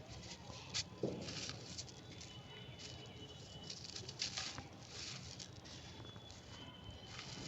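Crunchy, brittle material being crumbled, giving an irregular run of crisp crackles and crunches.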